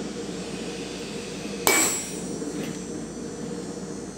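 A single sharp metal-on-metal strike on a steel anvil about one and a half seconds in, ringing briefly with a high tone, over a steady low hum.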